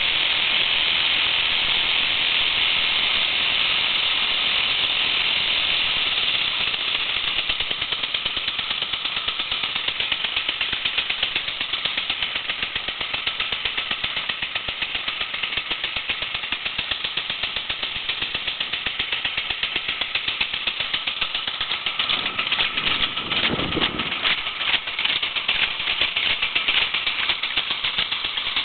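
Small boat underway: a steady hiss with a fast, even rattle that sets in and gets stronger toward the end.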